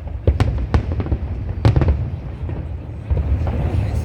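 Aerial fireworks bursting: several sharp bangs and crackles in the first two seconds, then a few fainter pops, over a steady low rumble of booms.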